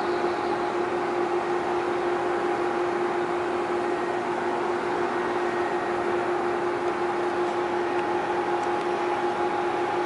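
Steady drone of shipyard machinery: a constant hum over an even rushing noise, which cuts off suddenly at the end.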